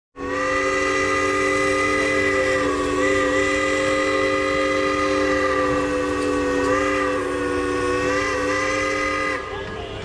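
A steam traction engine's train-type chime whistle blows one long blast of several notes sounding together as a chord. It holds steady for about nine seconds, wavers slightly a few times, then cuts off near the end.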